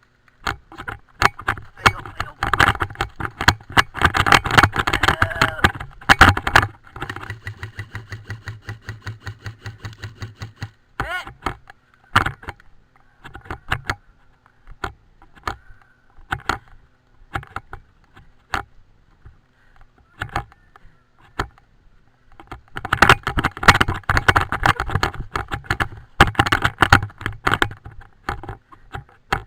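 Clattering and rattling from a helmet-mounted camera and the player's gear as the player moves, with stretches of dense clicking and a steady run of about four knocks a second partway through, in keeping with running strides. Mixed in are the sharp snaps of airsoft guns firing.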